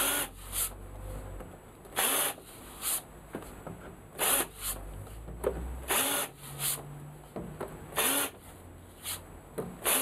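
Cordless drill cutting countersunk screw holes in an MDF board, run in short bursts about every second, often two close together.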